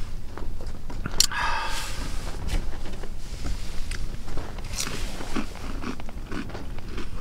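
A person eating a crunchy snack: bites and chewing with crunches and small clicks, and one brief louder crackle about a second in.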